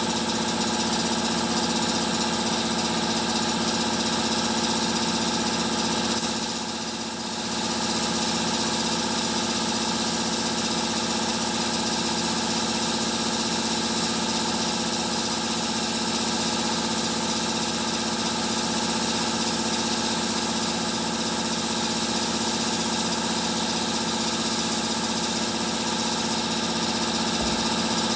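Steady machine hum with several steady tones, from the paint booth's running equipment, under the hiss of compressed air from a gravity-feed spray gun spraying primer. The sound dips briefly about seven seconds in.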